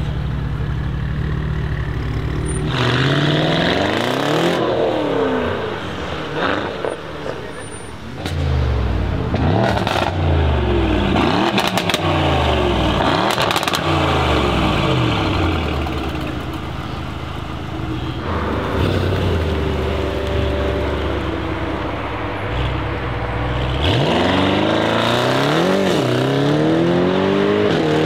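Mercedes-AMG E63 S's twin-turbo V8 through a decat exhaust, with its catalytic converters removed. It idles at first, then gives a run of sharp free revs that rise and fall over and over, settles for a few seconds, and near the end pulls away under acceleration, rising in pitch.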